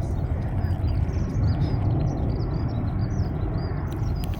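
Small birds chirping in a quick twittering run of short high notes over a steady low rumble.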